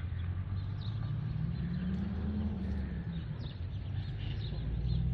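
Outdoor ambience: small birds chirping faintly over a steady low rumble, which swells briefly about two seconds in.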